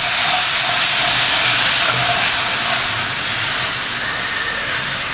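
Milk poured into a hot pan of oil-and-flour roux, hissing steadily as it hits the hot pan while it is stirred in to make a white sauce.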